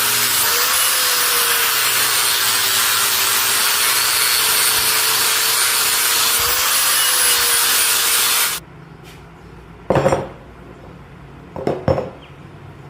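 Abrasive power tool grinding metal: a loud, steady, harsh noise with a wavering motor tone, which cuts off suddenly about eight and a half seconds in. Two short metal clanks follow near the end.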